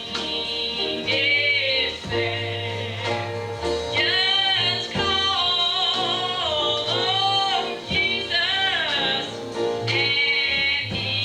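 Gospel song with singing over an instrumental backing with a steady bass and beat.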